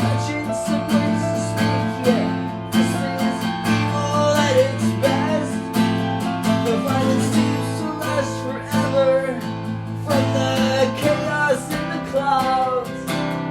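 Music: an instrumental break in a song, with acoustic guitar strumming a steady rhythm under a bending lead melody line.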